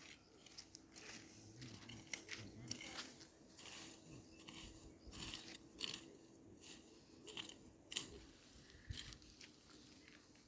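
Grass and plant stems being picked by hand, with irregular crisp snapping and rustling.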